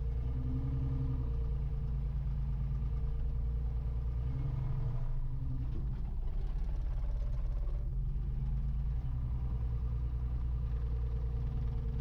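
Wheel loader's engine running steadily, heard from inside the cab; its note changes for a few seconds about halfway through.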